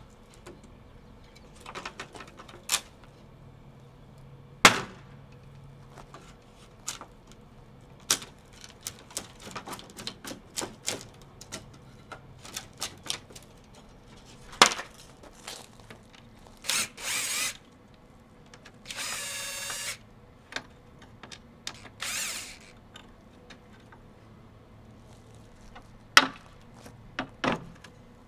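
Steel pry bar levering nailed boards off a wooden fence gate: scattered knocks and taps of metal on wood with a few loud whacks, short scraping sounds, and one drawn-out squeal about two-thirds of the way through.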